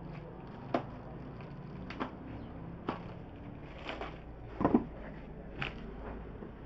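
Scissors snipping through the foam and plastic wrap on an office chair base, a sharp snip every second or so. A fuller knock a little after halfway, the loudest sound.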